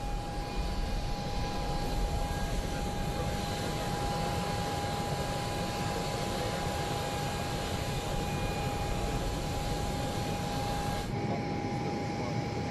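Steady jet aircraft noise on an airport apron: a constant high whine over a low rumble and hiss. About eleven seconds in, the upper hiss thins abruptly.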